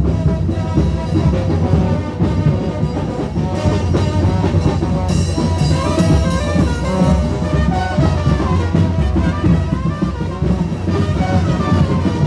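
Band music with a steady drum beat and brass horns playing through the whole stretch.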